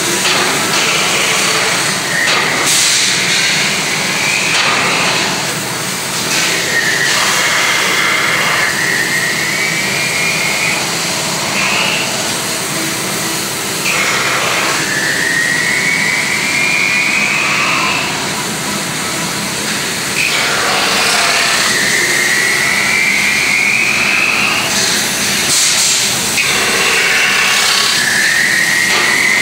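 CNC metal-spinning lathe forming a 1/8-inch aluminum blank over a mandrel with a roller tool: steady machine noise, with a whine that rises in pitch over two or three seconds and repeats about every seven seconds, four times, as the roller makes its forming passes.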